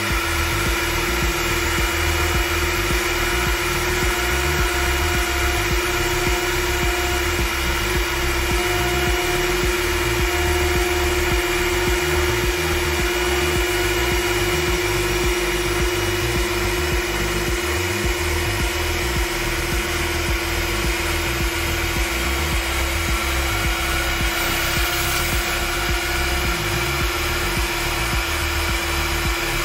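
Makita 700C compact router, run as a CNC spindle, whining steadily at a constant pitch as its carbide burr bit cuts a black sheet.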